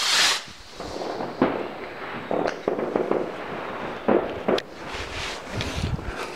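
A firework going off: a hissing whoosh as it leaves the ground, then a sharp bang about a second and a half in and several more bangs over the next few seconds.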